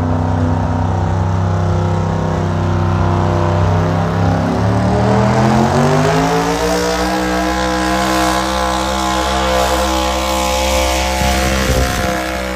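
Pickup truck engine revving hard under load as it drags a weight-transfer sled in a truck pull. The pitch climbs steadily from about four seconds in to about seven seconds in, then holds at high revs.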